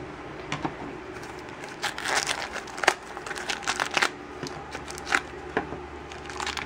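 A small plastic toy basket being handled and opened, with clicks, followed by a yellow plastic blind bag crinkling and crackling as it is pulled out and squeezed in the hand.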